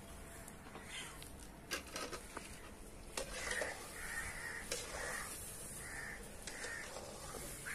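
Gulab jamun balls deep-frying in oil in an aluminium kadai give a steady sizzle, with a few sharp clicks of the slotted spoon against the pan. Over it, a bird caws about six times in quick succession in the second half.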